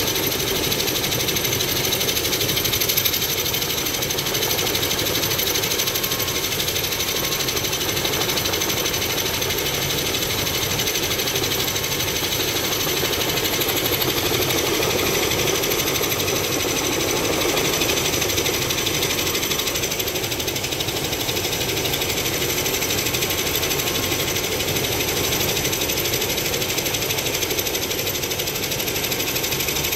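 Helicopter engine and rotor running steadily, with a constant high-pitched whine over the noise.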